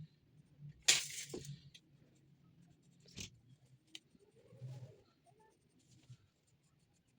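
A few scattered light knocks and clicks, with a short scraping or rustling noise about a second in, over a faint low hum.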